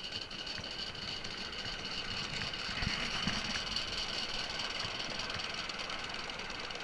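5-inch gauge coal-fired Simplex live-steam locomotive running along the track, a steady mechanical run with many small low knocks and a high hiss throughout.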